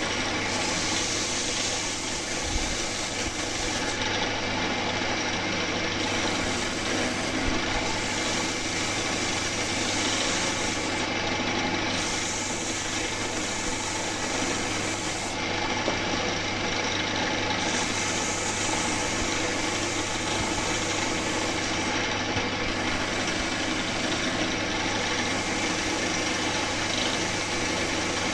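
Electric power tool shaping wood: a steady motor hum under continuous rasping and rubbing against the wood.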